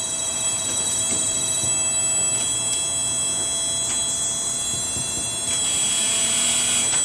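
A steady electrical buzz with a few faint clicks as the key is turned on a 1977 VW Rabbit diesel, and no cranking: the starter does not engage, which the owner puts down to a start relay that isn't working. A brief hiss near the end.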